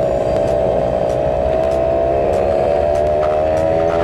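Small motorcycle's engine and exhaust running steadily at cruising speed, picked up close by a clip-on lapel mic, its pitch holding nearly level.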